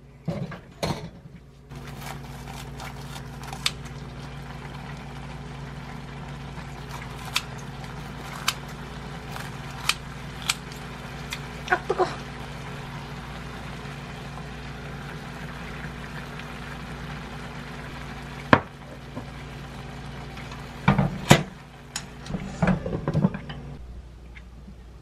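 Kimchi broth simmering in a frying pan, with metal tongs clicking against the pan as breaded pork cutlet slices are laid in, over a steady low hum. Near the end a glass lid clatters onto the pan.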